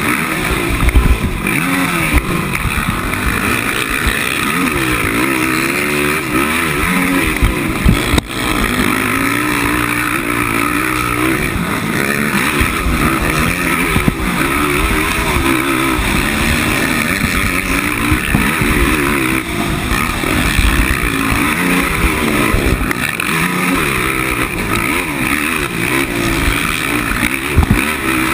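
The single-cylinder four-stroke engine of a 450-class race quad running hard, its pitch rising and falling again and again under the throttle, heard close up with a rush of wind noise. A few sharp knocks stand out, the loudest about a second in and about eight seconds in.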